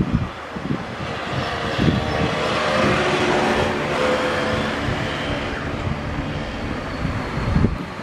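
Street traffic: a large vehicle passes by, its engine note swelling to a peak about halfway through and then fading. Wind buffets the microphone with low thumps near the start and again near the end.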